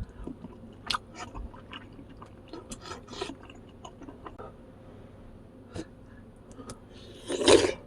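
A person chewing and biting food close up, with scattered short clicks and crackles of the mouth and food, and one louder, longer burst near the end.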